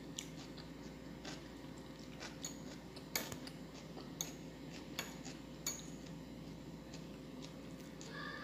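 Metal fork clinking and tapping against a glass bowl: light, scattered clicks about once a second, the sharpest a little after three seconds in.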